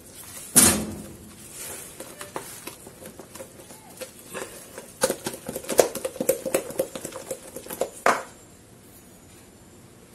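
Silicone spatula stirring thick flour-and-egg batter in a plastic bowl, with scraping and irregular clatter against the bowl. The loudest knocks come just under a second in and about eight seconds in, after which the stirring stops.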